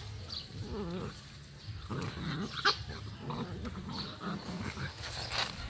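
Puppies play-fighting, giving short whines and small growls, with a sharp click as the loudest sound a little under halfway through.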